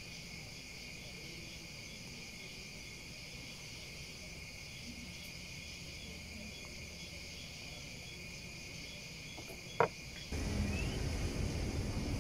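Crickets trilling steadily, with a faint chirp pulsing about twice a second. A sharp click comes shortly before the end, then low street traffic noise starts suddenly.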